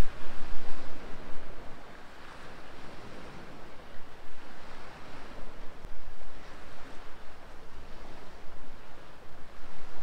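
Small sea waves washing against the shore in a steady rushing wash that swells and fades. Wind buffets the microphone with a low rumble, strongest near the start.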